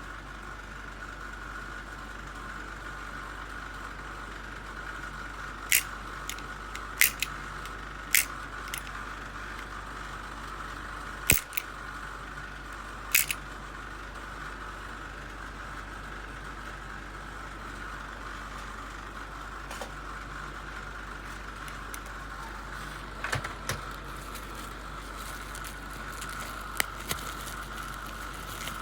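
Scattered sharp clicks, about a dozen, some in quick pairs, over a steady electrical hum.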